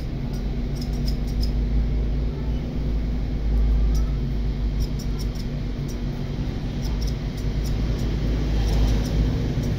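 Electric hair clippers buzzing steadily while cutting, with light sharp ticks scattered through.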